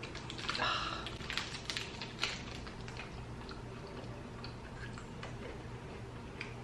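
Crisp crunching of Kit Kat wafer being bitten and chewed: a cluster of sharp crunches over the first couple of seconds, then fainter scattered ones over a low steady room hum.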